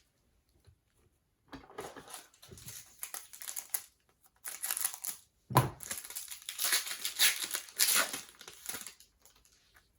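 Foil wrapper of a trading card pack crinkling and rustling as it is handled and opened. The rustling starts about a second and a half in and is loudest in the second half.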